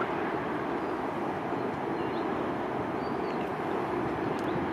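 Steady jet engine noise from an Airbus A350-900 taxiing at low thrust, an even rumble with no change in pitch. A few faint high chirps sound over it.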